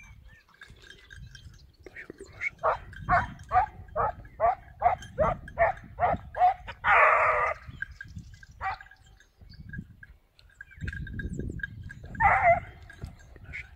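Swiss hound (Schweizer Laufhund) barking in a steady run of about ten barks, roughly two a second, followed by a longer, harsher bark and another one near the end.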